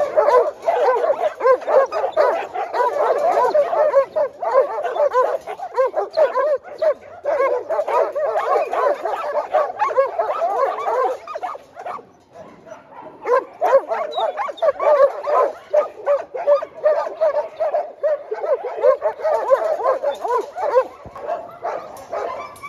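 A large pack of dogs barking, yipping and whining all at once, excited at feeding time. The din drops off briefly about halfway through, then picks up again.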